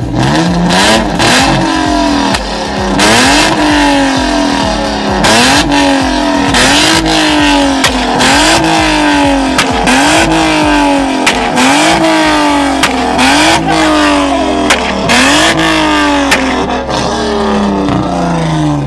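Car's straight-piped exhaust as the engine is revved over and over, about once every second and a half. It pops and crackles as the revs fall after each blip.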